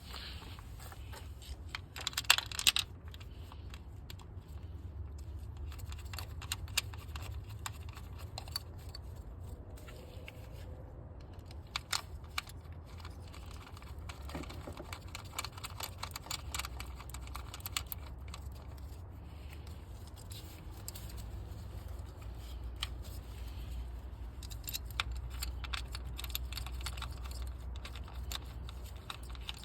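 Scattered small clicks and light rattles of ignition coils being handled and pushed back into the spark plug wells, over a steady low hum. A cluster of louder clicks comes about two seconds in, and another a little before the middle.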